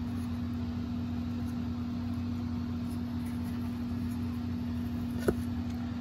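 A steady low machine hum with one constant tone, and a single sharp click about five seconds in.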